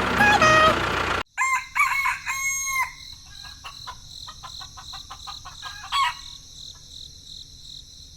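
Music that cuts off abruptly about a second in, then a rooster crowing, followed by scattered short clucks and calls over a steady high-pitched background drone.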